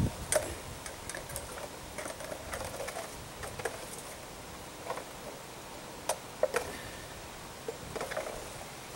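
Quiet outdoor background with scattered light clicks and crackles, about a dozen spread irregularly over several seconds.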